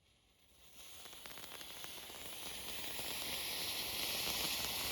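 Moonwalker novelty firework catching and spraying sparks: a steady hiss that starts about a second in and grows louder, with faint crackling.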